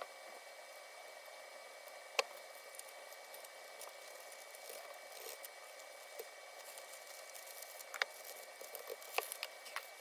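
Faint handling sounds of packing jewelry orders by hand: soft rustling and rubbing of packaging with a few sharp clicks and taps, the loudest about two seconds in and several more near the end.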